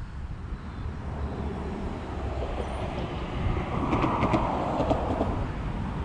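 A rush of noise that swells to a peak about four seconds in and then eases, over a steady low rumble of wind on the microphone.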